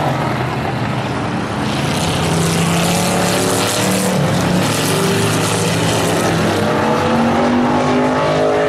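Several stock car engines running hard around a paved short oval track, their pitches rising and falling as they lap. One car passes close by about halfway through.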